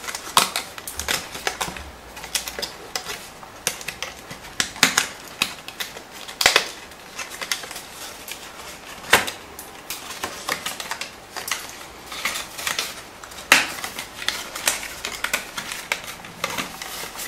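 Stiff card of a die-cut gift box being flexed and handled as the leftover die-cut scraps are pushed out of it: irregular sharp clicks and crackles, with a few louder snaps.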